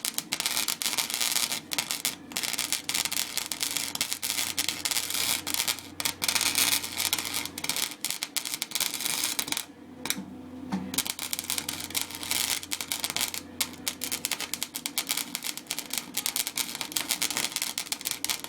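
Wire-feed welder arc crackling and sputtering as a weld bead is laid, stopping briefly just under ten seconds in before the arc is struck again.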